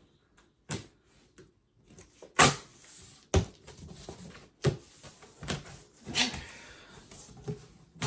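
Cardboard shipping carton being opened. Packing tape is slit with a blade, then the flaps are pulled back with a series of sharp cardboard knocks and scrapes, the loudest about two and a half seconds in.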